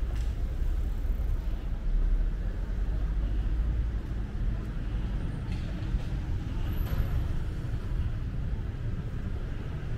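Street traffic running steadily with a low rumble, with a few faint clicks.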